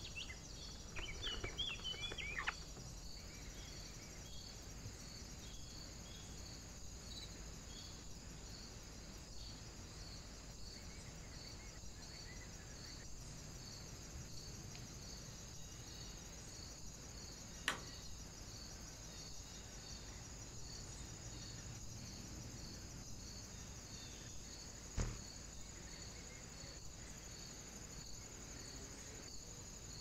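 A steady, high-pitched insect trill pulsing evenly throughout, with a short rustling flurry in the first couple of seconds and two sharp clicks later on.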